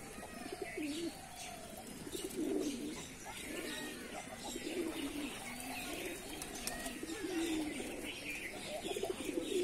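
A flock of domestic pigeons cooing, many low warbling coos overlapping one after another.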